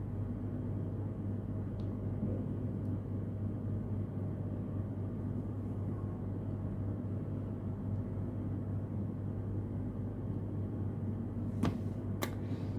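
Steady low hum with a soft hiss, as of a fan or room background noise, and two faint clicks near the end.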